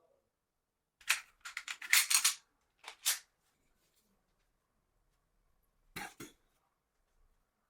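Airsoft pistol's hard parts clacking as it is handled: a quick run of sharp clicks and clacks about a second in, two more shortly after, and a final pair near the end.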